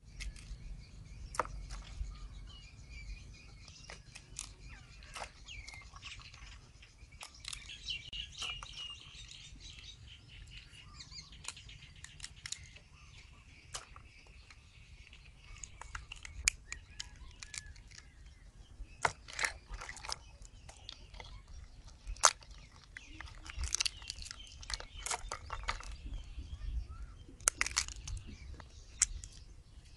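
Sharp cracks and snaps of rice field crab shells being broken apart by hand while the crabs are cleaned, coming in clusters and thicker in the second half. Birds chirp through the first half, over a steady low rumble.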